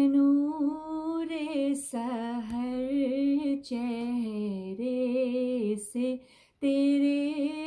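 A woman singing a hamd, a devotional song praising Allah, solo and unaccompanied. She holds long notes that glide and waver, with a short breath break about six seconds in.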